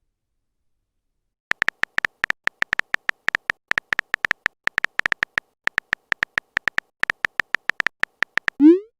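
Phone keyboard typing sound effect: a quick, uneven run of sharp clicks, several a second, starting about a second and a half in and stopping just before the end. It is followed by a short rising tone, like a message-sent chime.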